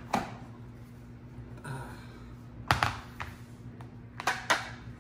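A refrigerator door pushed shut with a click right at the start, then a few sharp knocks and taps as a plate and a plastic-wrapped pack of beef ribs are set down and handled on a granite countertop. The loudest knock comes about halfway through, and there is a steady low hum underneath.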